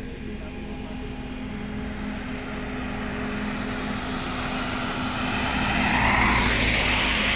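Road traffic: a vehicle's engine and tyre noise growing steadily louder over several seconds, over a steady low hum.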